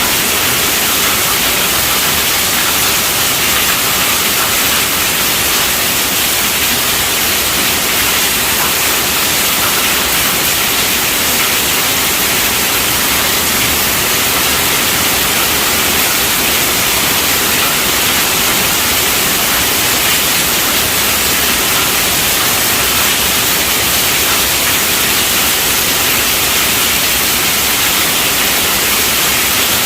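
Heavy rain falling on a tent roof: a loud, steady, even hiss with no breaks or thunderclaps.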